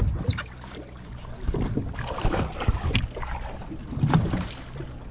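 Boat engine running with a steady low hum, wind buffeting the microphone, and irregular knocks and splashes of water at the hull.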